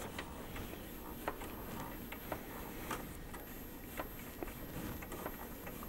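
Levelling knob under a MakerBot Replicator 2 build platform being turned by hand, giving faint, scattered soft ticks over a low steady hum.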